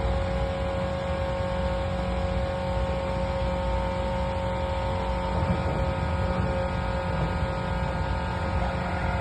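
Diesel engine of a heavy digging machine running steadily, with a steady whine over the low rumble.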